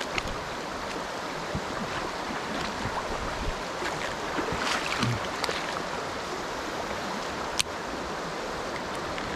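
Shallow river water running steadily over stones. A single sharp click comes about seven and a half seconds in.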